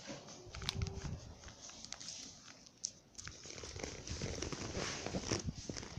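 Crinkling and rustling of snack packaging being handled, with scattered small clicks and knocks.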